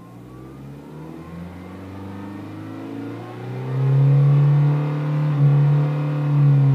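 Honda CR-Z's 1.5-litre four-cylinder engine and exhaust, the revs climbing slowly. The exhaust note gets much louder about halfway through and falls away suddenly at the end.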